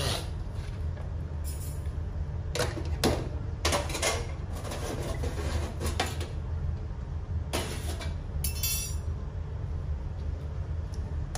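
Knocks and clanks of a toaster oven's door and its metal baking tray being opened and handled, with a short metal scrape about eight and a half seconds in, over a steady low hum.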